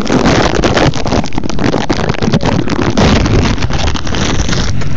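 Wind buffeting the phone's microphone as a loud, rough rumble, mixed with knocks and scrapes of the phone being handled and moved.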